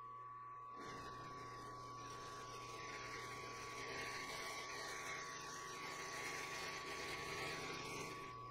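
End mill in a benchtop milling machine's R-8 collet cutting into a metal block as the table is fed by hand, a harsh grinding cut over the spindle motor's steady whine and hum. The cutting starts about a second in and stops sharply just before the end.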